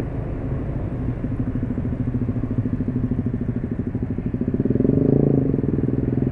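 Small motorcycle and scooter engines idling and creeping forward in dense stop-and-go traffic, a steady rapid putter that grows louder about five seconds in as the traffic pulls away.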